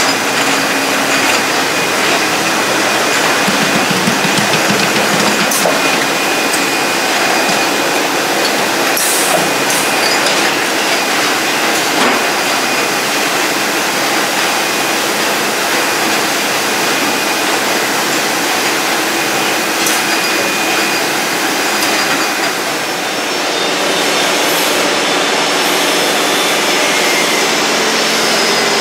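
Bottling and packing line machinery running: a steady, loud mechanical noise from conveyors and the group film-wrap packer, with a faint steady whine and a few sharp clicks and knocks. About three quarters of the way in, the noise dips and then settles into a steadier, hiss-like sound.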